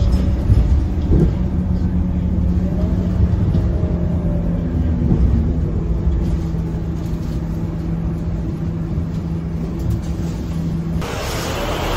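Scania K230UB bus's diesel engine running, heard from inside the passenger cabin as the bus slows and pulls in to a stop, with a steady engine hum. About a second before the end the sound changes abruptly to louder, hissier outdoor traffic noise.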